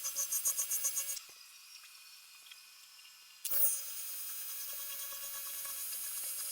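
AC TIG welding arc on aluminum, set at 60 Hz, buzzing with a pulsing rhythm as filler is dabbed in. The arc cuts out about a second in and is quiet for about two seconds. It re-strikes sharply about three and a half seconds in and runs on steadily: a restart partway round the runner weld.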